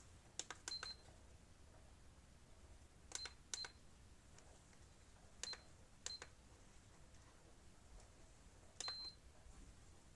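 Buttons on an electric pedestal fan's control panel pressed about eight times, each press a click and most followed by a short high beep, the last beep a little longer. No running motor is heard: the fan is one that won't turn.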